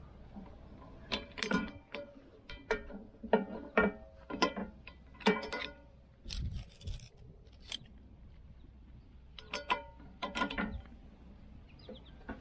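Steel hand tools clicking and clinking against the stump grinder's steel cutter wheel and tooth nuts: a torque wrench, ratchet and sockets knock and ring in sharp, irregular clicks while the new cutting teeth are tightened, with a pause of about two seconds past the middle.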